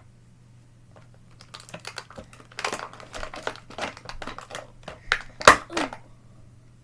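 Plastic packaging and slime-kit items being handled and pulled out: a run of quick crinkles, clicks and taps that starts about a second and a half in and is busiest near the end.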